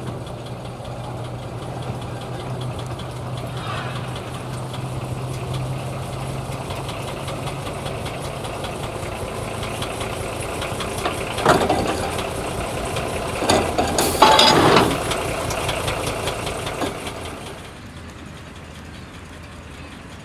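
Engine of a 15-inch-gauge miniature diesel-outline locomotive running steadily as it approaches. About halfway through come several loud clattering bursts as the locomotive and its carriages run close past along the track, and the sound drops away near the end.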